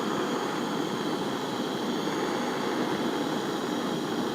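Jeweller's gas soldering torch burning steadily, a continuous even rushing hiss, while solder is drawn along a silver seam.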